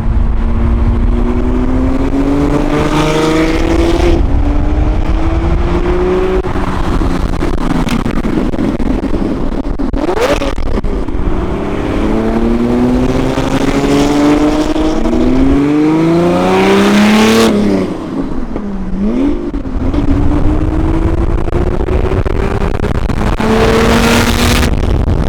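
Lamborghini Diablo's V12 engine, with its non-stock, nearly exhaust-less system, accelerating hard in several rising pulls through the gears. Its pitch drops sharply once, about two-thirds of the way through.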